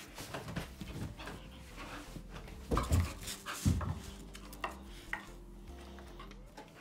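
Miniature bull terrier at play, making scuffling, clicking and mouthing noises, with two louder low sounds a little under a second apart near the middle.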